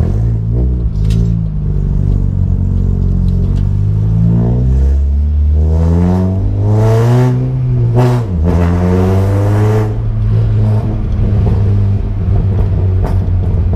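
Peugeot 106 S16's 1.6-litre 16-valve four-cylinder engine heard from inside the cabin while driving, revs climbing under acceleration. It drops sharply about eight seconds in, climbs again, then settles to a steadier, lower note.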